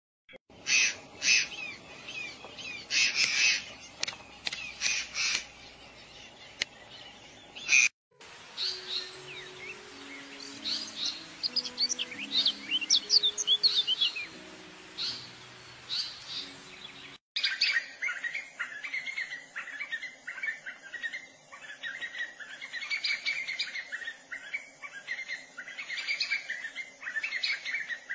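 Birds chirping and calling in three stretches joined by two abrupt cuts; the last stretch is a run of quick, repeated calls. A few soft, low music notes play under the middle stretch.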